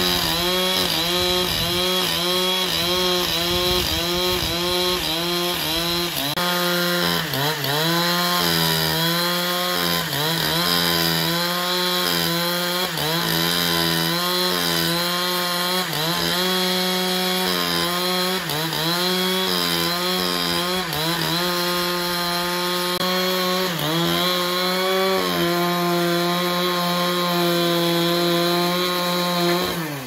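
Chainsaw engine running at high speed while cutting through a large log, its pitch sagging briefly every second or two as the cut loads it, then picking back up.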